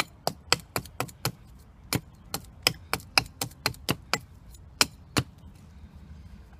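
Small Gerber hatchet striking a tree root in quick, light chops, about eighteen sharp hits over five seconds, unevenly spaced, then stopping.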